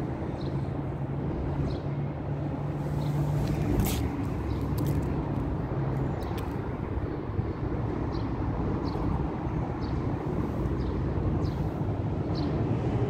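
Steady low rumble of a running vehicle engine, with a low hum that fades out about six seconds in. From about seven seconds on, faint short high chirps repeat roughly once a second.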